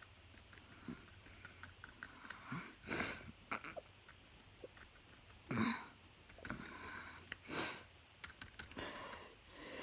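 A person's quiet sniffs and breaths during a sneezing fit: a few short breathy sniffs a couple of seconds apart, with faint scattered clicks.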